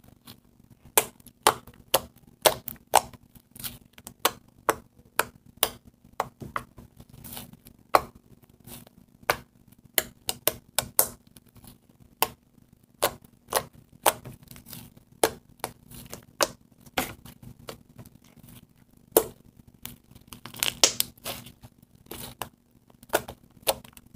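Fluffy slime made from glue, shaving cream and contact solution being squeezed, stretched and pressed onto a tabletop by hand, giving a string of sharp, irregular clicks and pops, a few a second, with a denser crackle near the end.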